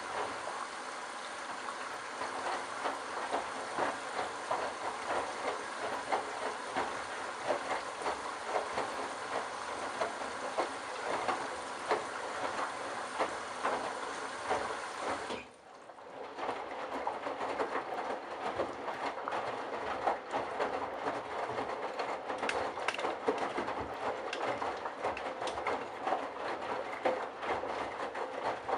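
Candy Bianca washing machine drum tumbling wet towels, water sloshing and splashing with a constant patter of small clicks. About halfway through the sound drops out briefly as the drum stops, then picks up again as it turns once more.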